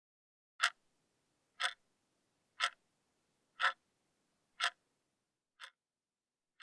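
Analog alarm clock ticking, one sharp tick a second, the last couple of ticks softer.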